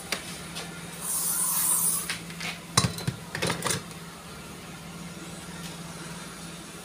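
A spray bottle of cleaner hissing in one spray of about a second, followed by a few sharp knocks and clatters of the plastic gauge cluster being handled, over a steady low hum.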